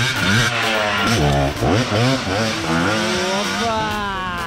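Dirt bike engine revving up and down under hard riding, the pitch rising and falling repeatedly and climbing steadily near the end.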